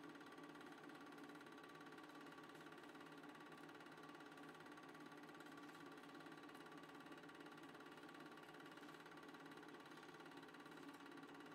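Near silence: a faint, steady hum and hiss with no distinct events.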